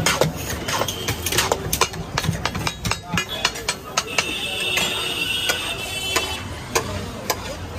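Two metal spatulas scraping and clinking against a large flat tawa griddle as vegetable pulao is stirred, with many sharp clicks, and a steel bowl of rice is tipped out onto the griddle. A high, steady tone sounds for about a second and a half near the middle.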